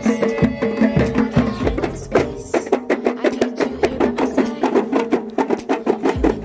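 Kompang ensemble playing: many hand-struck Malay frame drums beating a fast, even rhythm together with a larger barrel drum (jidur) on a stand.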